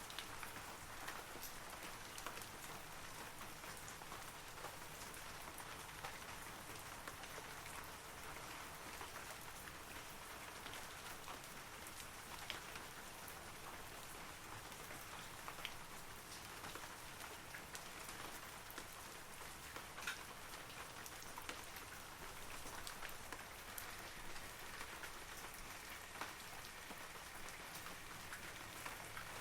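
Steady rain falling on forest trees, a continuous soft hiss with many individual droplets ticking and plinking throughout.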